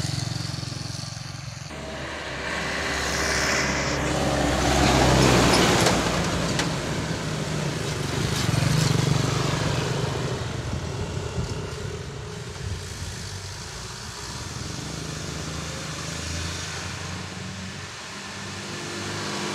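Small motorcycle engines running close by on the road, mixed with traffic and wind noise from moving along; the noise swells loudest about five seconds in and again near nine seconds.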